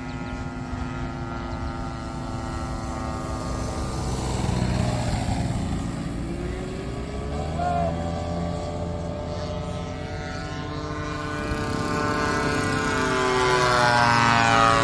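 Engines and propellers of several large radio-control model airplanes droning overhead at once, their pitches sliding as they turn and pass. Near the end one plane flies by low and close, the loudest moment, its pitch bending as it passes.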